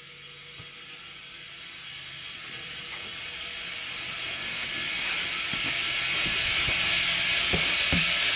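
Compressed air hissing into a freshly bead-seated truck tire, growing steadily louder, with a few sharp clicks in the second half.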